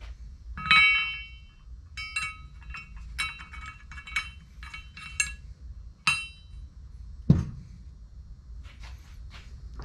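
Small steel tuning weights for a Polaris RZR Pro XP primary clutch's flyweights clinking against each other and the metal clutch parts as they are handled and set in, each clink ringing briefly, with a quick run of clinks in the middle. A single duller knock about three-quarters of the way through is the loudest sound.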